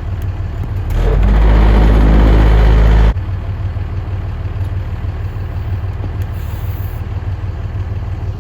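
Heavy diesel truck engine idling steadily. About a second in, a much louder low, rushing sound comes in for about two seconds and cuts off suddenly.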